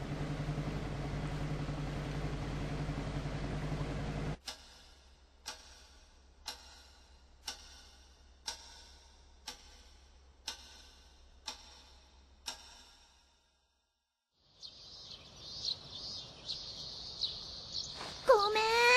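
A steady low hum cuts off about four seconds in, leaving a clock ticking once a second. After a moment of silence, birds chirp and a rooster starts to crow near the end.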